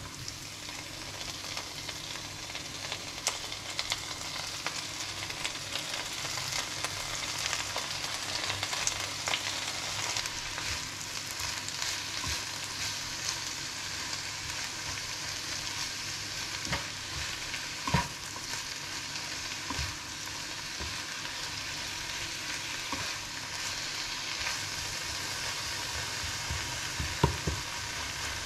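Fresh spinach sizzling in a hot frying pan, building over the first few seconds as the leaves go in, while a spatula stirs them with scattered light scrapes and taps on the pan. Two sharper knocks of the spatula on the pan stand out, about two-thirds of the way through and near the end.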